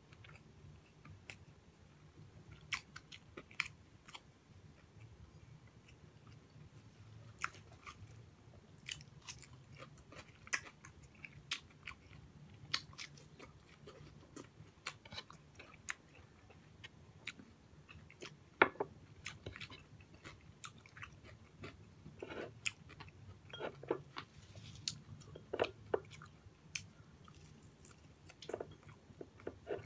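Close-miked eating sounds of a man eating fried pork chop and rice by hand: irregular chewing, with sharp little clicks and wet lip and finger smacks scattered throughout.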